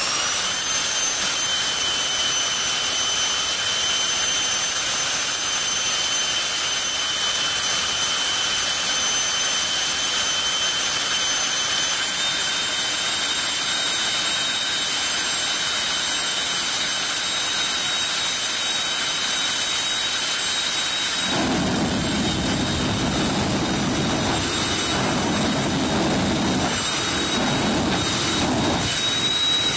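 Jet funny car's jet engine running at the start line with a steady, high whine. About twenty seconds in, a lower, rougher rumble joins it and swells unevenly.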